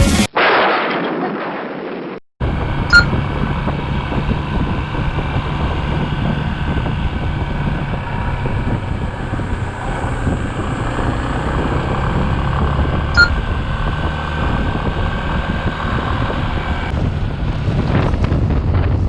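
Single-cylinder Yamaha Serow motorcycle running at a steady pace, with wind buffeting the microphone. A short falling whoosh and a brief dropout come first. Two sharp clicks sound about three seconds in and again ten seconds later.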